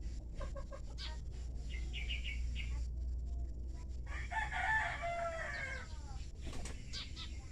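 A rooster crowing once, a loud call of about two seconds that falls in pitch at the end, with a few short calls shortly before it, over a steady low hum.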